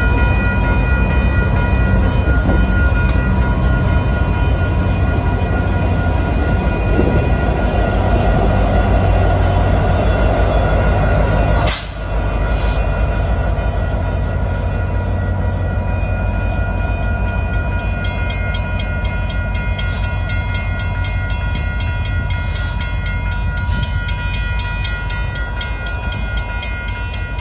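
Union Pacific freight train's diesel locomotives rumbling past close by. A grade-crossing warning bell rings steadily over the rumble throughout.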